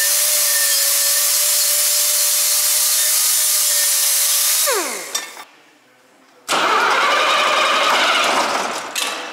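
A pneumatic air wrench runs free with a steady whine and air hiss, then spins down with a falling pitch about five seconds in. After a brief pause, the Scania R124's 12-litre DC12 diesel is cranked for its first start after the cylinder liner and piston repair, a sudden loud burst that fades away near the end.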